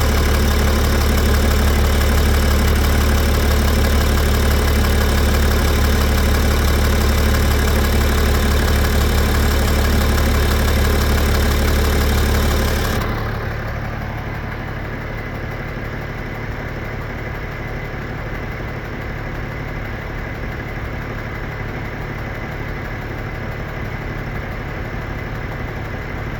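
BMW M57N2 3.0-litre straight-six common-rail diesel idling hot with a repeated knock. The owner suspects an injector, the high-pressure fuel pump or a piston, ring or valve, and has ruled out the vacuum pump and timing chains. About halfway through the sound turns quieter and duller.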